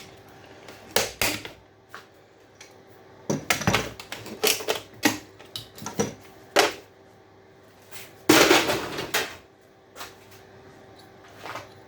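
Screwdriver and small metal parts clicking, knocking and scraping while brass pieces are pried out of scrapped electrical fittings, in irregular sharp strokes with a longer clattering scrape about eight seconds in. A faint steady hum runs underneath.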